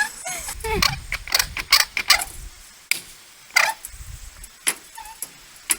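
Irregular knocks and clanks of sheet steel being bent by hand over clamped wooden boards, with a few low rumbles among the sharp hits.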